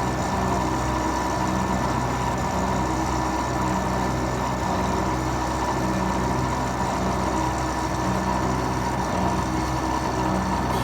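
Manual metal lathe running steadily while turning a screw shaft for a milling machine: a constant low machine hum with a thin, steady high whine over it.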